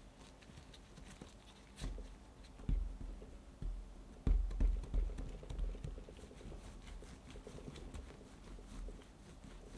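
Kitchen handling sounds: scattered light taps and clicks, with louder soft thumps about a third of the way in and around the middle.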